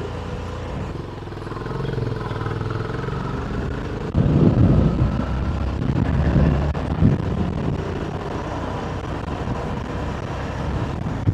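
Wind buffeting a wireless lavalier mic in a motorcycle helmet while riding, over the steady drone of the motorcycle and road traffic. The wind gusts much harder from about four to seven seconds in.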